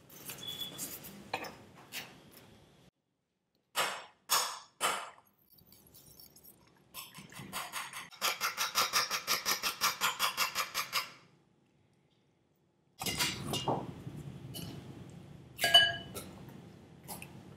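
A fork beating eggs on a ceramic plate: a quick, even run of clinking strokes, about eight a second, lasting about three seconds. After it comes crunchy rustling in a glass bowl of crushed tortilla chips, with one sharp, ringing clink on the glass near the end. A few light knocks and handling noises come before the whisking.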